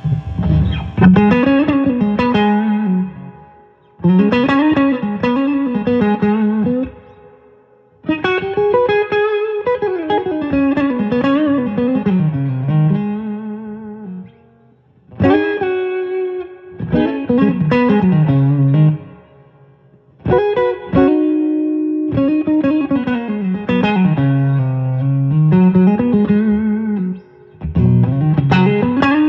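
Electric guitar played through a Sinewave JF-100 amplifier head and speaker cabinet: single-note lead lines with bends and vibrato. The lines come in phrases of a few seconds with short pauses between them.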